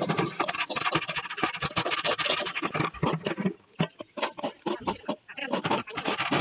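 Shrimp frying in hot oil in a large steel wok, a dense crackling sizzle, with the long metal spatula scraping and stirring through the pan.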